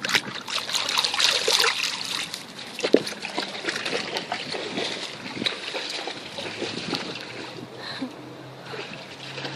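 Water splashing and sloshing as a dog moves and plays in a small pool of water, busiest in the first few seconds and then easing off.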